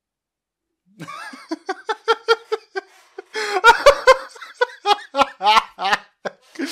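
A man laughing hard: a run of quick laugh pulses, about five a second, starting about a second in, growing louder in the middle and breaking up into separate bursts near the end.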